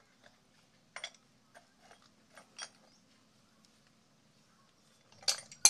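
Light metallic clicks and ticks of a hand tool working on a metal water-pipe fitting, scattered over the first few seconds, then two louder knocks near the end.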